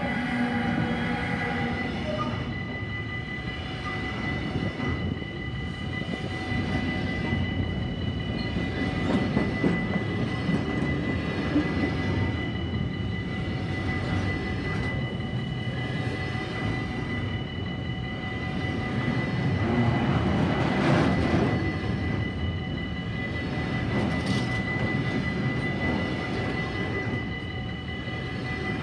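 A container train hauled by a Siemens Vectron electric locomotive passing close by. The locomotive's electric whine comes as it goes by at the start, then the wagons rumble and clatter steadily over the rails. Steady high warning tones from the level crossing sound throughout.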